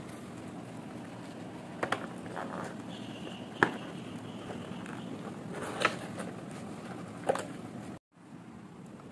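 Sieve being tapped to dust icing sugar: four light, sharp taps a second or two apart, the second the loudest, over a steady low background hum. The sound drops out for a moment near the end.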